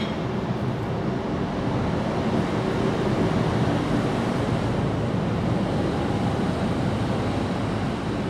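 Steady low rushing background noise with no distinct events.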